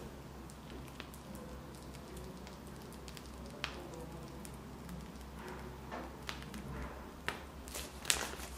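Faint squishing and crinkling of a plastic piping bag as cream cheese frosting is squeezed out, with scattered small clicks over a low steady hum.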